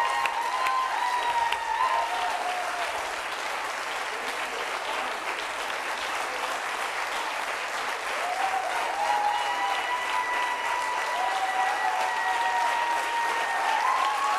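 Studio audience applauding steadily, greeting a correct million-lira answer on a quiz show. Held musical tones come in over the clapping a little past halfway.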